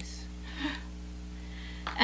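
Steady low electrical hum, with a brief soft hiss about half a second in.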